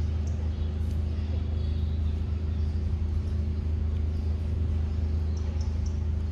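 A steady low engine hum, with a few faint high chirps near the end.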